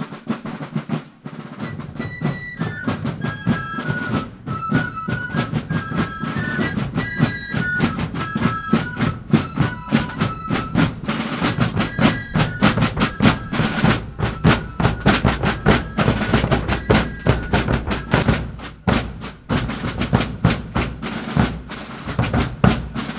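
Drum music, with snare drum rolls and steady beats under a high piping melody that starts about two seconds in.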